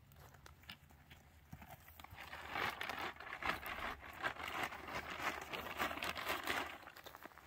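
Plastic bag rustling and crinkling as it is handled and rubbed against a horse, starting about two seconds in and going on in irregular crackles.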